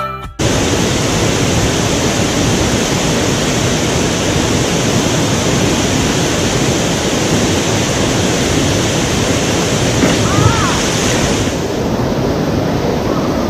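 Waterfall's water rushing in a loud, steady roar. About eleven and a half seconds in, the highest part of the hiss drops away.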